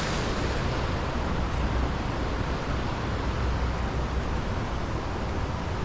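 Steady rushing noise of a fast-flowing, rain-swollen stream, with a low rumble underneath.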